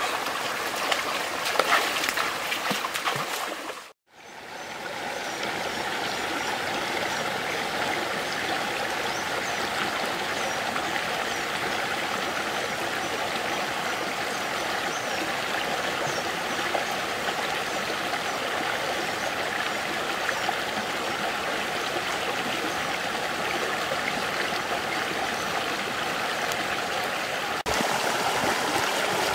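Shallow rocky stream running over stones: a steady rush of water. A few sharp knocks come in the first few seconds, and the sound drops out briefly about four seconds in.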